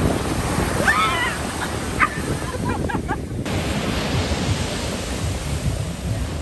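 Ocean surf breaking, with wind on the microphone; in the first three seconds a few short high-pitched yelps ring out over it, and about three and a half seconds in the sound changes abruptly to a steadier rush of waves.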